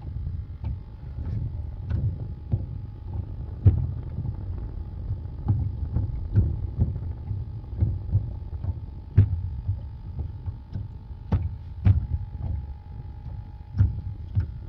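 Wind rumbling on the microphone, with irregular knocks and thumps in a flat-bottomed mud boat about once or twice a second.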